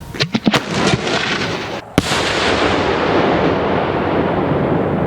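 Fireworks going off: a quick run of sharp bangs in the first second, a loud single bang at about two seconds, then a dense, unbroken rush of noise from continuous firing.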